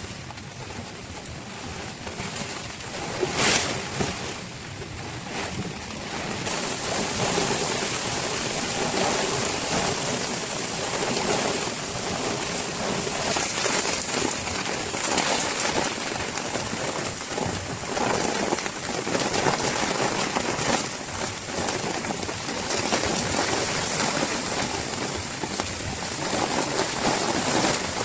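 Heavy rain pouring down in a steady hiss, growing heavier about six seconds in, with a single sharp crack about three seconds in.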